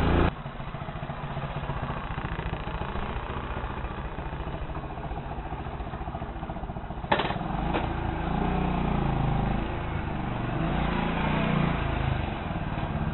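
Vehicle engine running over a rough road, with one sharp knock about seven seconds in, after which the engine note rises and falls twice.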